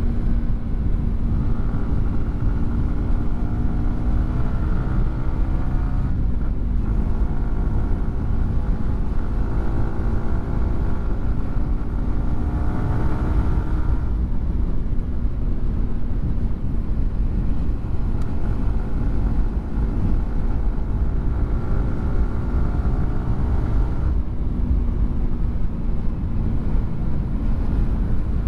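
Yamaha R15 V4's single-cylinder engine through a WRX GP3 aftermarket exhaust while riding: the engine note climbs slowly in pitch and drops sharply twice, about six and fourteen seconds in, as it shifts up a gear, then runs steadier. A strong low wind rumble sits under it.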